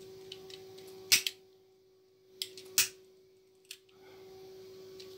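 A few sharp clicks and taps of small tools being handled at a workbench during desoldering, the loudest near the start and about halfway through, over a steady faint hum.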